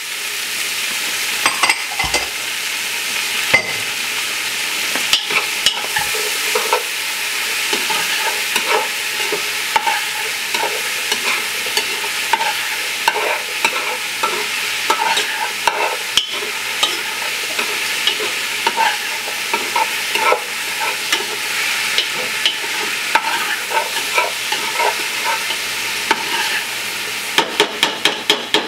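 Bacon, hog jaws, diced onion and bell pepper sizzling in oil in a stockpot, stirred with a spoon that scrapes and clicks against the pot. A quick run of clicks near the end.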